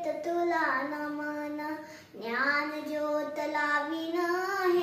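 A young girl singing a Marathi ovi solo, without accompaniment, in long held notes, with a brief pause for breath about two seconds in.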